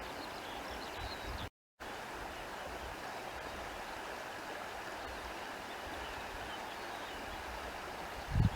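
Steady outdoor countryside ambience, an even rushing noise like running water, with faint high chirps early on. The sound cuts out completely for a moment about a second and a half in, and there is a low thump near the end.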